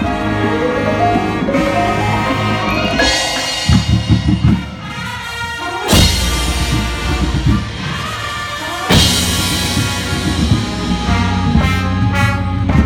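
Marching band field-show music: marimbas struck with yarn mallets close up, with brass and percussion from the full band. There are big accented ensemble hits about six and nine seconds in.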